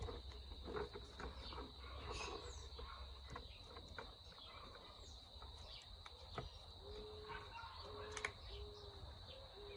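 Faint rustling and small clicks of rubber strips being wrapped and tied around the end of a chainsaw chain, over a steady high-pitched insect chirr. A few short low tones sound near the end.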